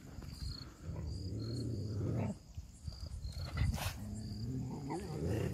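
A dog growling low, twice, each growl about a second and a half long and rising in pitch at its end.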